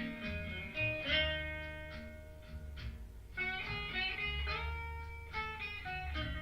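Blues guitar instrumental break between sung lines: single plucked notes over a steady bass, with a short pause about halfway through. The music is a recording played back through a 245 tube amplifier.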